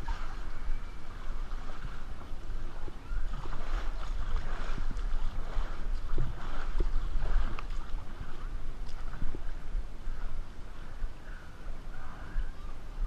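Water lapping and sloshing against an inflatable ring drifting down a lazy river, heard through a GoPro's waterproof housing, over a steady low rumble.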